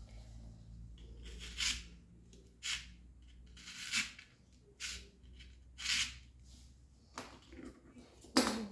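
Hands working on a craft bouquet: a run of short, crisp snipping or rustling strokes, about one a second.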